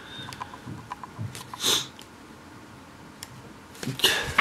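Paper pages of a paperback picture book rustling as they are handled, with a short rustle about a second and a half in. The loudest part is the quick flutter of pages being flipped near the end.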